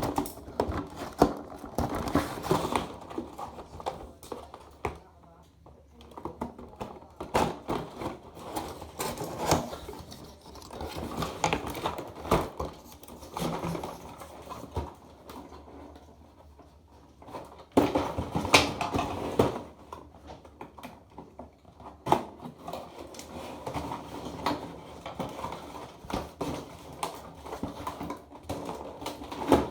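A toy's cardboard box and plastic packaging being handled and opened: irregular rustling and scraping with many sharp clicks and taps.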